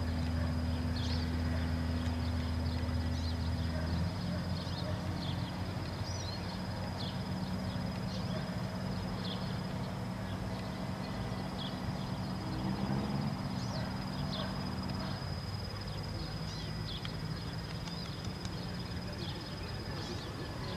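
Steady low hum of an idling engine. Its tone shifts about four seconds in and it fades out about fifteen seconds in. Small birds chirp over it throughout.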